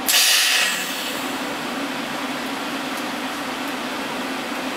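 A power tool running steadily with a harsh hiss and a low hum, louder and brighter for the first half-second, then cutting off abruptly just after.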